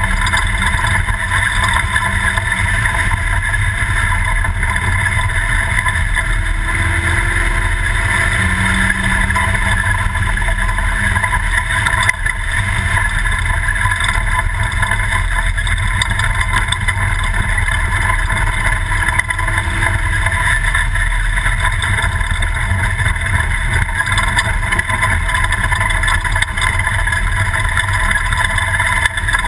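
Class 2000 Toyota prerunner race truck driving off-road at race pace: steady, loud engine and driving noise with no letup.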